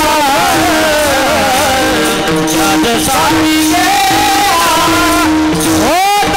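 Male voices singing a Marathi Warkari kirtan chal together, over a steady held drone note, with brass taal hand cymbals clashing in rhythm. Near the end a voice sweeps sharply up in pitch.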